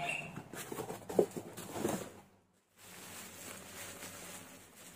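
Hands handling a cardboard box and bubble-wrapped packets: rustling with a few light knocks, a short break to near silence about halfway through, then a faint steady rustle of plastic.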